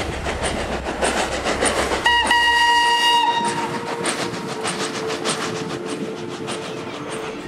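Steam locomotive working past, its exhaust chuffing in a steady beat of about four strokes a second. About two seconds in it gives one whistle blast lasting about a second.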